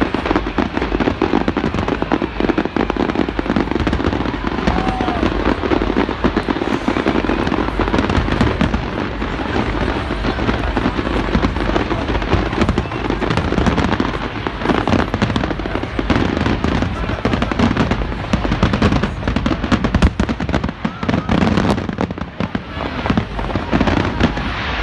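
Fireworks display finale: aerial shells bursting one after another in a dense, unbroken barrage of bangs.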